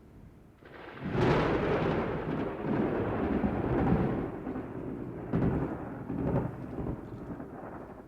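A peal of thunder. After a quiet start, a deep rumble rises about a second in and stays loudest for the next few seconds. It then rolls on more weakly, with a couple of smaller swells, and fades.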